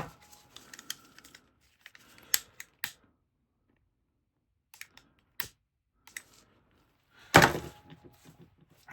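Small scattered clicks and ticks of a metal jacket zipper and slider being worked by hand, trying whether the slider fits onto the teeth, with a louder, short scraping rustle about seven seconds in.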